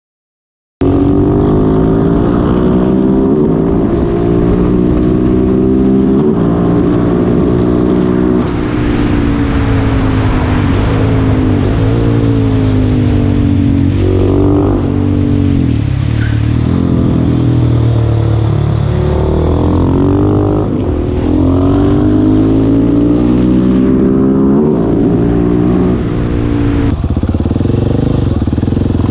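Husqvarna 701 Supermoto's single-cylinder engine with an Akrapovic exhaust, ridden hard under full throttle. It cuts in suddenly about a second in, and its pitch climbs and drops back again and again as it accelerates through the gears, easing off briefly around halfway before pulling hard again.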